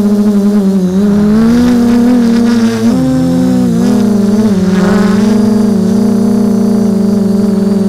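Electric motors and propellers of a small remote-controlled drone, picked up by its onboard camera: a loud, steady whine made of several tones. About three seconds in the motor tones pull apart, one briefly dropping in pitch and rising back as the craft manoeuvres, then the whine evens out again.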